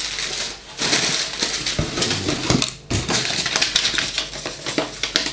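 Inflated plastic air-cushion packing bags crinkling and rustling as they are handled and pulled out of a cardboard parcel box, full of small crackles and clicks. There is a brief lull about three seconds in.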